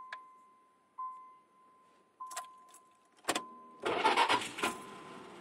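A warning chime tones about once a second while keys click in the ignition of a 1987 Chrysler Fifth Avenue with its carbureted 318 (5.2 L) V8. About three seconds in, the starter cranks briefly and the engine fires, loud for a moment before settling to an idle. The owner calls the engine's misfire horrible.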